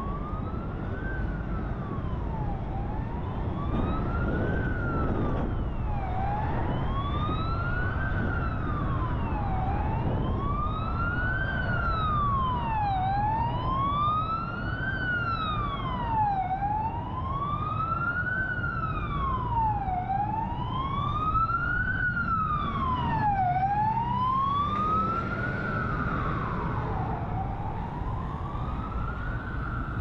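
Emergency vehicle siren wailing, its pitch rising and falling about once every three and a half seconds, over a steady low rumble of city traffic. A second wailing siren joins out of step for a few seconds at a time.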